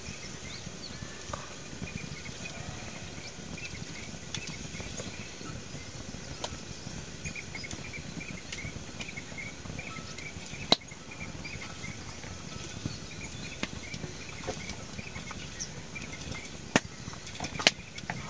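Steady background ambience with faint rapid chirping through the first half and a few sharp clicks, one about halfway and two near the end.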